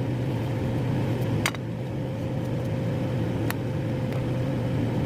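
A steady motor hum with a held mid-pitched tone over a low drone, and a few light clicks, one about a second and a half in and another about three and a half seconds in.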